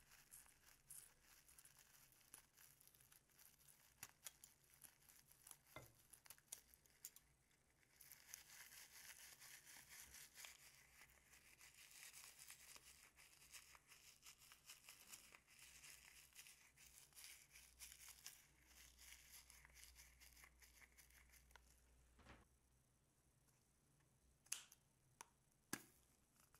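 Faint snipping and clicking of scissors cutting into a glitter-filled rubber balloon, then a longer stretch of soft crackling and rubbing as the balloon is squeezed and its glittery filling works out onto the slime. A couple of sharp clicks come near the end.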